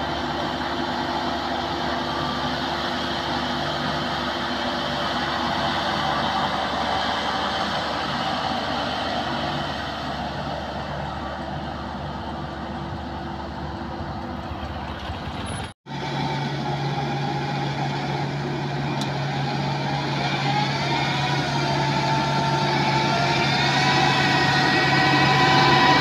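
Tracked rice combine harvester's engine running steadily as the machine crawls along a dirt track. The sound cuts out for an instant about two-thirds through and resumes as a steadier drone that grows louder toward the end.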